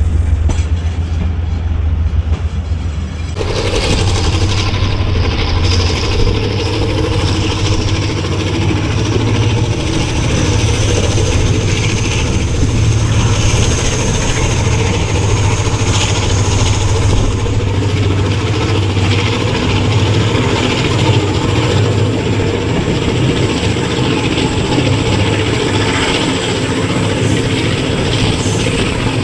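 ZCU-30 diesel-electric locomotive running under power with a steady deep engine drone, mixed with wheel-on-rail and wind noise of the moving train. About three seconds in the sound suddenly becomes louder and fuller.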